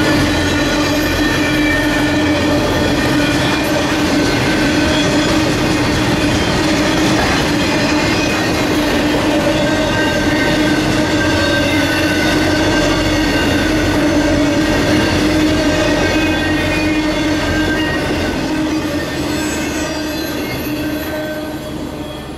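Intermodal freight train's cars carrying highway trailers rolling past on steel wheels, with a steady wheel squeal over the rumble of the rails. The sound fades away in the last few seconds as the end of the train goes by.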